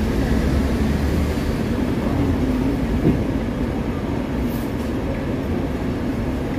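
Hong Kong tram running, heard from inside the car: a steady rumble with a low hum, and a single knock about three seconds in.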